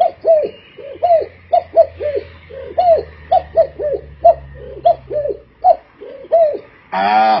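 A man imitating a pigeon's cooing with his voice: a run of short coos that rise and fall in pitch, about two a second. Near the end a louder, longer call with a different tone begins.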